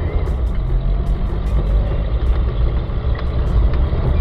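Old Toyota Hilux pickup driving under power, heard from inside the cab as it accelerates from a stop through the low gears: a steady low engine and road rumble with scattered clicks and rattles.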